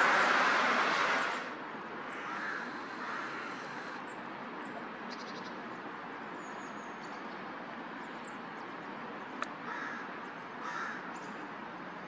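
A few short caws from corvids, two about two to three seconds in and two more near the end. A loud rushing noise fades out in the first second or so, and there is a single sharp click shortly before the last calls.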